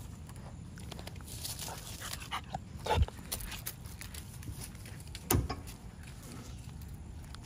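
Pit bull puppies playing, with two short loud barks, one about three seconds in and one about five and a half seconds in, and smaller yips and scuffles between them.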